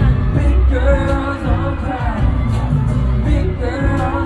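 Loud pop song played over a concert sound system, with a sung vocal line and heavy bass.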